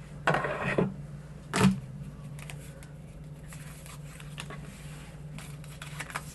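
Paper die cuts and cardstock pieces being handled: a few rustles in the first second, a sharper tap about one and a half seconds in, then faint light rustles and ticks over a steady low hum.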